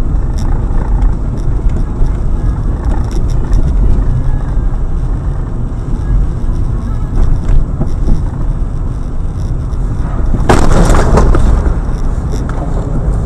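Car road and engine noise as recorded by a dashcam, a loud steady rumble with a few short knocks. A louder noisy burst lasting about a second comes about ten seconds in.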